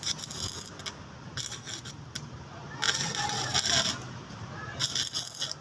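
Electric arc welding on a metal grill, crackling and sizzling in three short bursts of about half a second to a second each as the arc is struck and broken.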